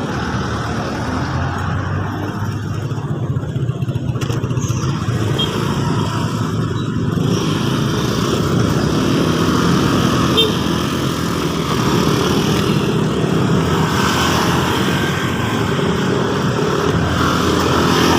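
Road traffic with motor vehicle engines running close by, heard from the roadside while riding. It grows somewhat louder over the first few seconds and then holds steady.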